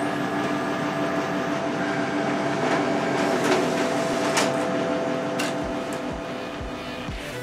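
Office photocopier running, a steady mechanical hum and whir with a few sharp clicks as paper feeds through. About five and a half seconds in, a kick drum starts thumping about twice a second as electronic music comes in.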